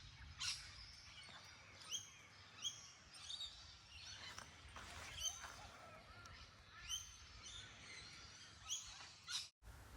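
Birds calling faintly outdoors: short, high chirps repeated every second or so over a low background hiss. The sound breaks off for an instant near the end.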